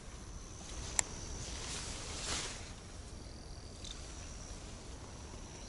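Insects chirping steadily in a thin high tone. A single sharp click comes about a second in, and a brief soft whoosh follows a little after two seconds.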